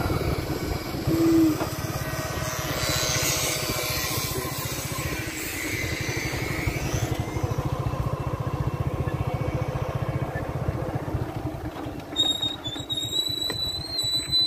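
A small engine running steadily, with a fast, even low pulsing. Thin high whistling tones come in near the end.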